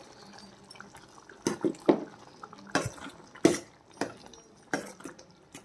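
Steel ladle stirring thick curry in a stainless-steel pot, knocking against the pot in a series of irregular clinks with wet sloshing between them, starting about a second and a half in.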